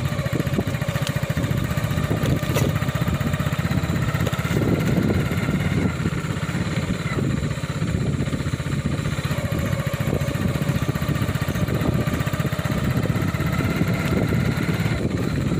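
A motorcycle engine running steadily at low speed.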